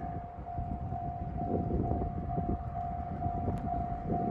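Railway level-crossing warning bell ringing in one steady tone that repeats about twice a second, over the low rumble of an approaching KiHa 183 series diesel express train.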